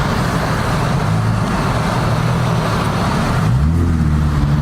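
Ford Mustang's engine running as the car drives on snow, with a steady rush of tyre and road noise. About three and a half seconds in the rush drops away and the engine note rises as it revs.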